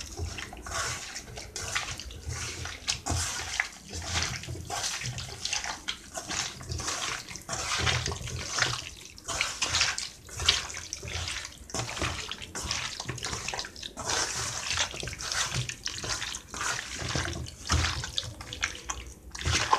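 A hand squishing and kneading raw chicken pieces into a masala, corn flour and ginger-garlic paste marinade in a metal bowl: repeated wet squelching strokes, roughly one or two a second, with soft thuds.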